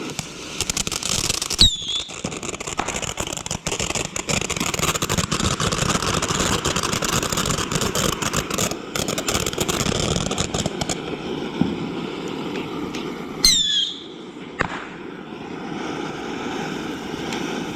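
Consumer fireworks going off close by: about ten seconds of dense crackling, with a loud bang about two seconds in. Another loud bang comes near thirteen seconds, each bang followed by a short falling whistle, then a sharp pop and quieter noise.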